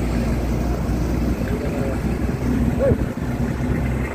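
The vehicle carrying the camera drives along with a steady low engine drone, road noise and wind noise.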